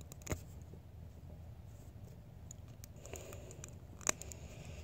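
Two sharp clicks of small plastic building-toy pieces being handled, one shortly after the start and a louder one near the end, with a faint rustle before the second.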